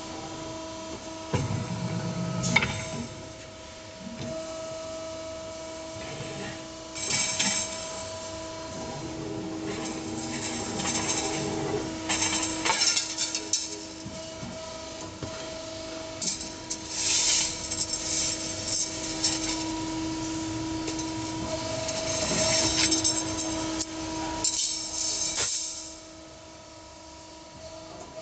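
Evaporator tube bending machine running, a steady hum of several tones broken every few seconds by short bursts of hiss as it works a bundle of tubes into serpentine coils. The sound drops near the end.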